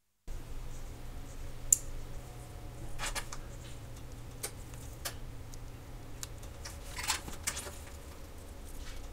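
Small clicks and short light scrapes of a watchmaker's metal hand tools on a watch dial and bench, over a low steady hum. The sharpest click comes just under two seconds in.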